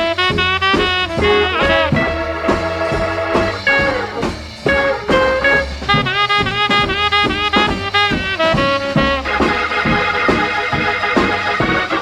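1955 R&B instrumental played from a 78 rpm record: a swinging small band with horn riffs and bent notes over a steady beat, the Hammond organ taking the lead with sustained chords near the end.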